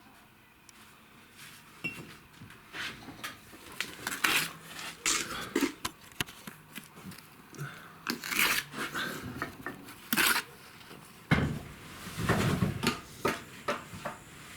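Irregular clinks, knocks and scrapes of metal tools and parts against brick and metal during stove building, with a louder cluster of knocks near the end.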